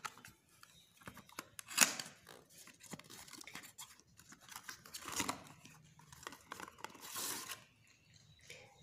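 Cardboard carton being opened by hand and a tube with its folded paper leaflet slid out: rustling, crinkling and scraping of card and paper, with louder scrapes about two, five and seven seconds in.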